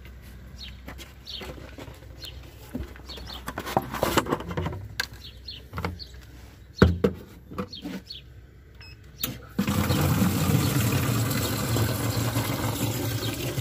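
Water filling a large plastic bottle, starting suddenly about ten seconds in as a steady rush with a low hum beneath it. Before that, a few clicks and knocks as the bottle is handled, and birds chirping.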